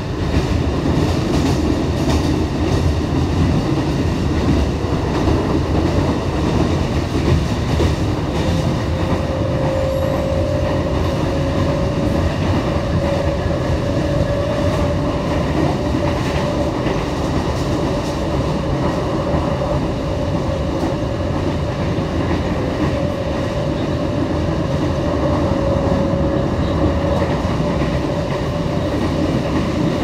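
Trensurb electric commuter train running steadily, heard from inside the carriage: a continuous rumble of wheels on the rails. A thin, steady whine joins about a third of the way in and carries on.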